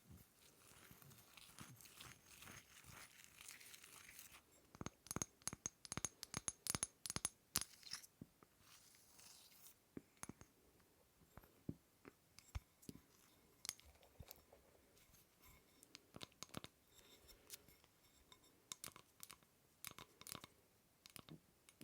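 Small objects handled close to the microphone. Soft scratching and rustling gives way, about four seconds in, to a quick run of sharp taps and clicks, then a brief rustle and scattered clicks.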